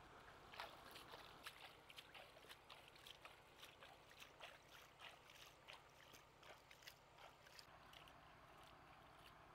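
Hands splashing and scooping water at a pond's edge: a run of faint, small splashes about two or three a second, stopping about eight seconds in.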